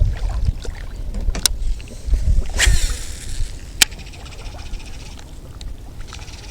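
Wind buffeting the microphone in gusts that ease after about three seconds, with two sharp clicks and a brief hiss in between.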